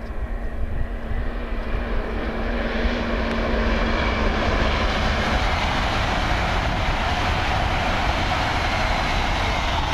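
LNER Class 801 Azuma electric train passing at speed: a steady rush of wheel, rail and air noise that builds over the first few seconds and holds loud as the coaches go by.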